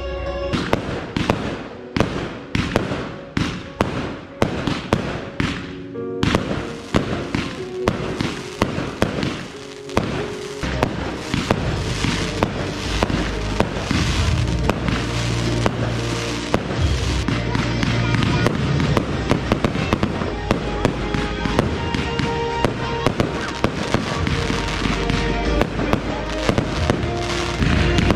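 Aerial fireworks bursting in a rapid series of sharp bangs, several a second, which after about ten seconds thicken into a dense, continuous barrage with a heavier low rumble. Music plays under the bangs throughout.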